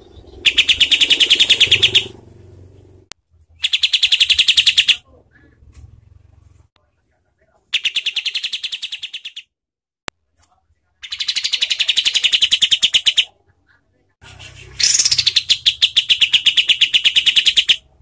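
Caged kapas tembak bulbul singing its harsh, rapid-fire 'tembakan' call: five bursts of fast repeated notes, each lasting about two seconds, with short pauses between them.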